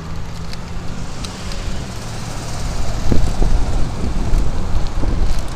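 Wind buffeting the microphone of a camera carried on a moving bicycle, coming in gusts from about halfway through. Under it, a motor vehicle's low steady hum fades out over the first two seconds.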